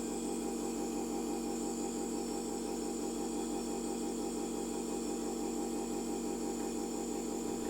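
A small electric motor running with a steady, even buzzing hum that does not change.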